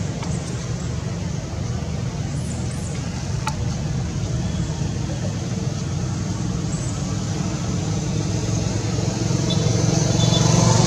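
Steady low engine hum of road traffic, growing louder near the end, with a few faint high chirps.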